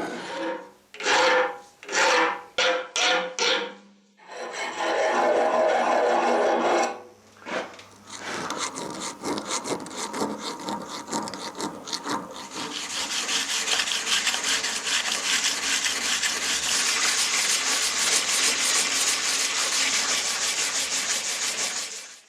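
Scraping by hand in repeated strokes, like filing or rasping: a few separate strokes at first, a longer scrape around five seconds in, then a steady quick run of strokes from about eight seconds on that grows louder after twelve seconds.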